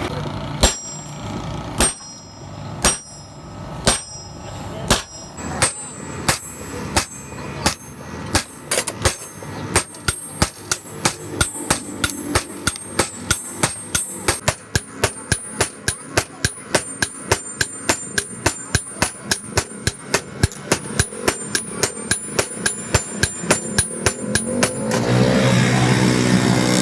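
Hand hammer striking metal on an anvil, each blow ringing. The blows come about once a second at first, then speed up to a quick run of about three a second, and stop shortly before the end, where a steadier rushing noise takes over.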